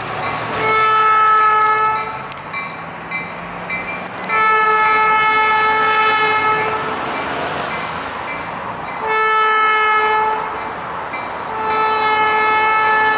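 EMD SW1500 switcher locomotive's air horn sounding the grade-crossing signal: two long blasts, a short one, then a final long blast, a steady multi-note chord each time.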